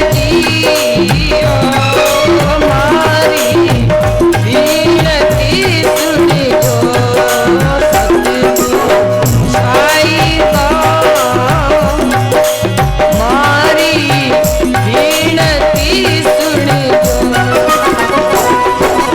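Rajasthani folk bhajan music: a melodic line with sliding notes over a steady drone tone, accompanied by a hand drum and jingling rattle-type percussion in a steady rhythm.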